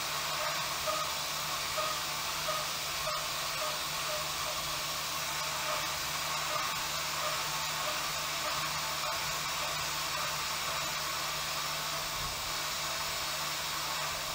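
Haas CNC mill roughing the bevel of a hardened 20CV steel knife blade with a small end mill: a steady airy hiss from the air blast at the cutter over a low steady hum.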